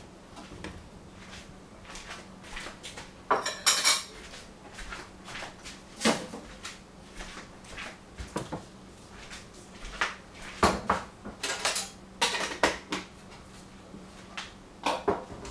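Irregular clinks and knocks of metal pots, pans and cutlery being handled, in scattered clusters, over a faint steady hum.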